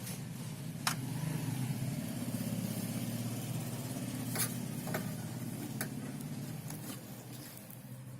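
A steady low mechanical hum, with four sharp clicks, about one, four and a half, five and six seconds in.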